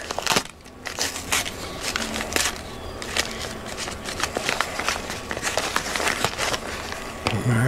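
Yellow padded mailer envelope being torn open and handled: paper ripping and crinkling in a quick string of crackles.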